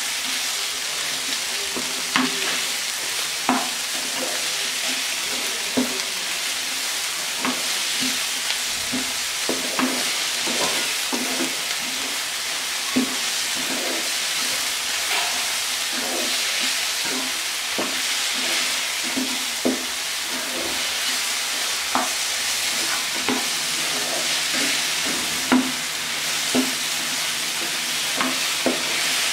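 Chopped vegetables sizzling in oil in a pan while being stir-fried with a slotted spatula: a steady hiss with irregular scrapes and taps of the spatula against the pan.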